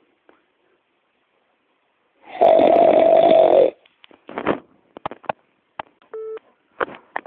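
Snoring: after about two seconds of quiet comes one loud snore lasting about a second and a half. It is followed by a scattered run of short clicks and snuffles and one brief whistling squeak.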